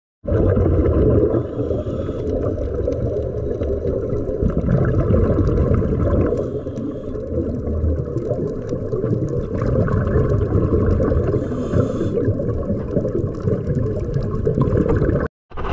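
Muffled underwater rumble and crackle picked up by a camera below the surface, with a hiss of scuba exhaust bubbles about every five seconds. The sound cuts out just before the end.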